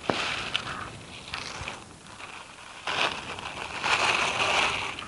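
Rustling and scraping of parts being handled as a leg is fitted to a shredder's wheeled stand, coming in several short noisy bursts with a click at the start. The longest burst comes near the end.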